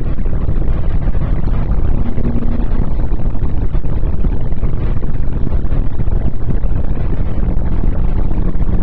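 Renault Clio II 1.6 16v four-cylinder engine running at speed, mixed with loud, steady road and wind noise.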